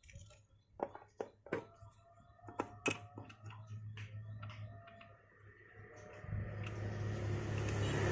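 Scattered sharp clicks and knocks of metal parts or tools being handled. From about six seconds in, an engine starts to be heard and grows steadily louder.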